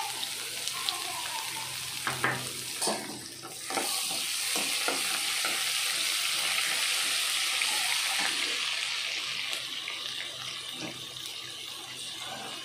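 Crushed garlic and tempering spices sizzling in hot oil in a non-stick wok while being stirred with a metal slotted spatula. A few sharp knocks of the spatula against the pan come about two to three seconds in. The sizzle grows louder from about four seconds and eases off toward the end.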